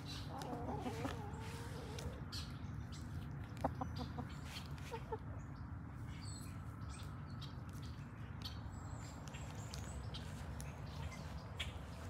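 Hens calling: a low, wavering call lasting about two seconds at the start, then a few short clucks a little past the middle, over a steady low background rumble.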